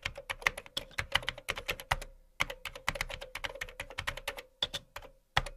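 Typing sound effect: rapid key clicks, several a second, with a couple of short pauses.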